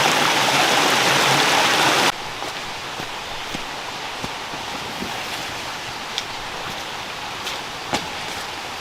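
Rain: a loud, dense rush of heavy rain that cuts off suddenly about two seconds in, giving way to a quieter steady rain hiss with scattered sharp ticks of single drops.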